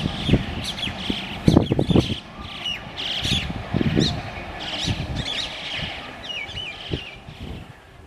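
Birds chirping over the fading rumble of a departing LHB-coach train, with irregular knocks of its wheels over rail joints, loudest about a second and a half to two seconds in.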